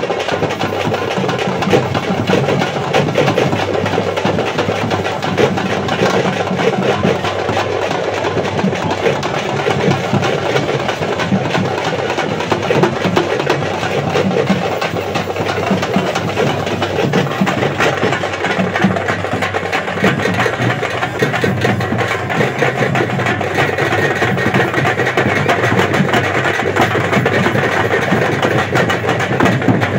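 Procession drum band of large stick-beaten bass drums and smaller drums playing a fast, dense beat without a break.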